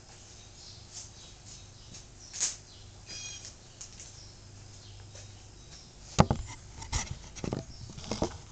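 Faint scattered knocks and clicks of objects being handled and set down in a workshop, with a brief squeak about three seconds in and a cluster of sharper knocks near the end.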